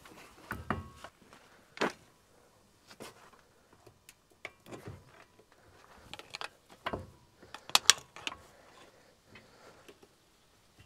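Scattered metallic knocks and clanks from a semi truck's drive shaft, freed from its carrier bearing, being pushed back by hand; the loudest knock comes about 8 seconds in.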